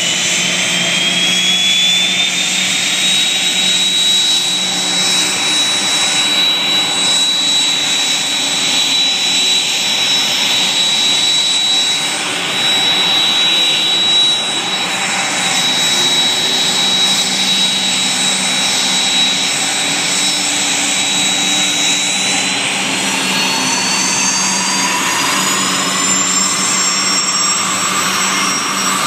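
Turboshaft engines of several UH-60 Black Hawk helicopters running on the ground: a steady high turbine whine over a low hum. The whine rises in pitch over the first few seconds, and a second whine climbs from about three quarters of the way through as another engine spools up toward takeoff.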